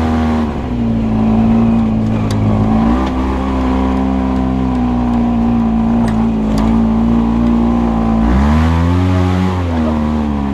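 A motor vehicle engine running at a steady pitch under way. About eight seconds in, the pitch drops and then climbs back.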